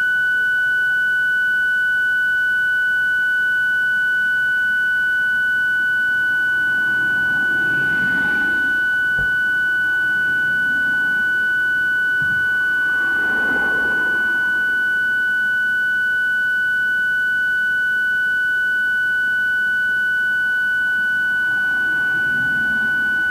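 A continuous, steady, high-pitched electronic tone, unbroken throughout, with two faint swells of noise about a third of the way in and again just past halfway.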